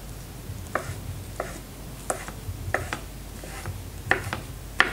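Chef's knife slicing oyster mushrooms on a wooden chopping board: a knock of the blade through the soft mushroom onto the board about every two-thirds of a second, roughly seven cuts in a steady rhythm.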